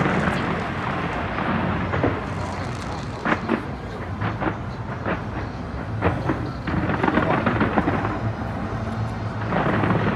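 Fireworks display: a continuous rumble of booming shells with many sharp cracks and bangs scattered throughout.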